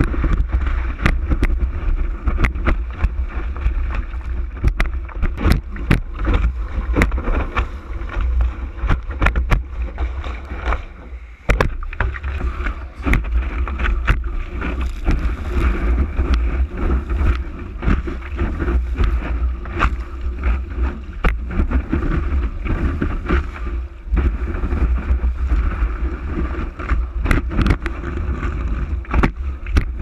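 Wind buffeting the microphone of a board-mounted camera as a kiteboard surfboard rides through breaking surf, with water spray and splashes striking the camera in frequent sharp ticks. The sound dips briefly about eleven seconds in.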